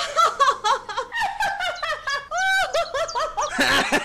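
Two women laughing together, a fast run of short ha-ha notes.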